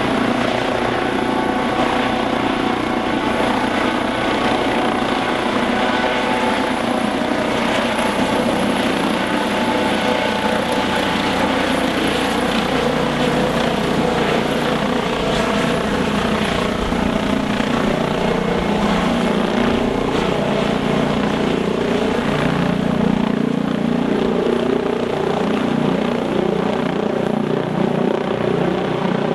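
Eurocopter EC155 twin-turbine helicopter running: a steady, dense engine and rotor noise with a thin high whine above it.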